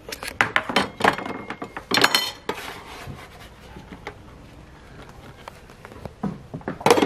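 Kitchen utensils and containers being handled: a cluster of sharp clinks and knocks in the first couple of seconds, quieter handling in the middle, and a few more knocks near the end.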